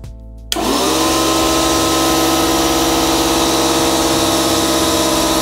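Small Stanley 6-litre air compressor switching on about half a second in. It rises briefly in pitch as the motor spins up, then runs loud and steady.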